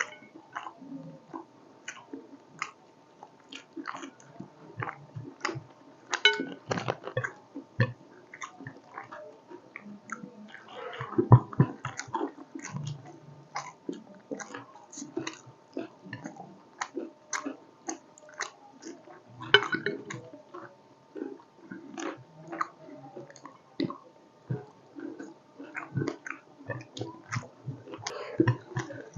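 Close-miked wet chewing, lip smacks and mouth clicks of people eating a meal of fish curry and rice, irregular throughout with a louder cluster about eleven seconds in.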